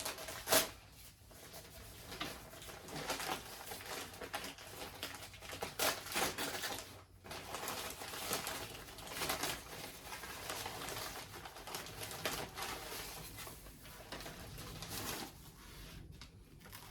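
Packaging rustling and crinkling as a shipped orchid is unwrapped, in irregular scrapes and crackles with short pauses.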